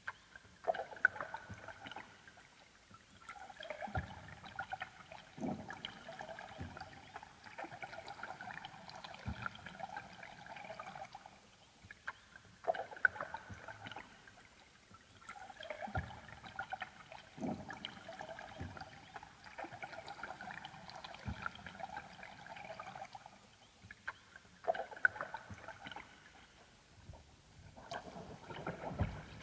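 Ambient electronic music: layered held chords that swell in long phrases, a new one starting about every twelve seconds, with scattered soft low thuds underneath.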